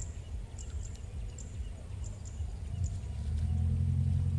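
Low wind rumble with faint, sparse high ticks or chirps, then a steady low engine drone that comes in about three seconds in.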